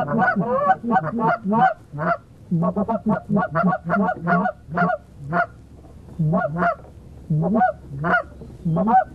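Loud series of Canada goose honks and clucks: short two-note calls that break from low to high, coming rapidly for the first five seconds and then more spaced out.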